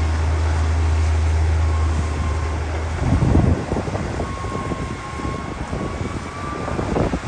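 Heavy diesel engine of an earthmoving machine running steadily with a deep hum, which stops abruptly about three and a half seconds in. A rough, crackling rumble follows.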